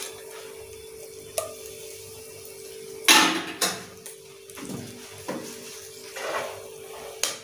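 Whole spices (cinnamon stick, bay leaf, cloves) frying in hot oil in an aluminium pressure cooker, with several short sharp sounds over the steady cooking noise, the loudest about three seconds in.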